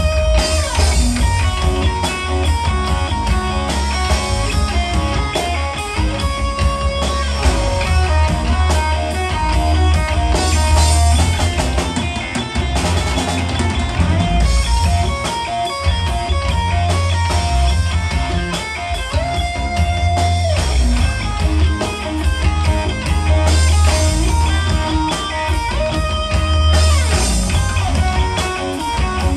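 Amplified electric guitar playing rock lead lines, with held and bending notes, over drums and heavy bass.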